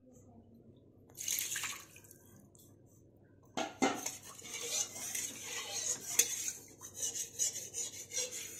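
Metal kitchen utensils clinking and scraping against cookware. There is a short scrape about a second in, then from about three and a half seconds a steady run of clinks and scrapes.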